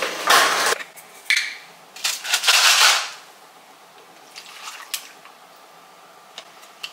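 A pod coffee machine's steady brewing hum stops within the first second, followed by a few short clattering, rustling kitchen noises, the loudest about two to three seconds in. Then it goes quieter, with faint pouring and small ticks as liquid goes into a plastic cup.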